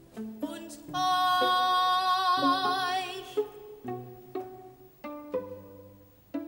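Plucked string accompaniment: pizzicato chords over a low bass, struck about every half second. From about a second in, a loud high note with vibrato is held for roughly two seconds over them.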